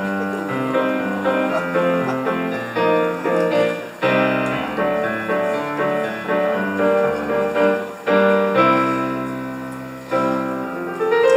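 Piano music, notes and chords changing steadily, with a rising sweep near the end.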